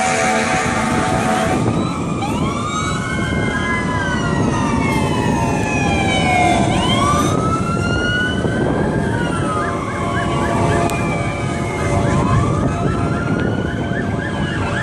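Several emergency vehicle sirens wail at once, their pitches rising and falling out of step over a steady low rumble. A horn blares at the start and stops about a second and a half in. Near the end one siren switches to a fast yelp of about four cycles a second.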